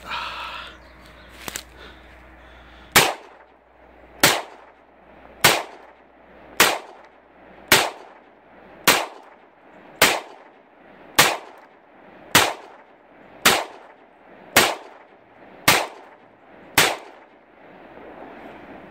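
Pistol firing thirteen shots at a steady pace, about one a second, each followed by a brief ring-out, as the last magazine is emptied.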